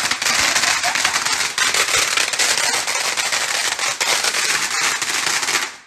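Fireworks going off in a rapid, dense crackle of pops that cuts off abruptly near the end.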